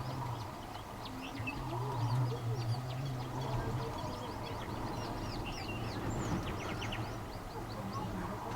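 Background birds chirping: many short, quick high calls overlapping throughout, over a low steady hum that drops out for a moment about a second in and again around four seconds.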